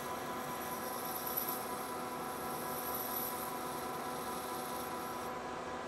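Metal lathe running during a light chamfering pass with a carbide insert tool: a steady mechanical hum with a thin high whine over it that stops near the end.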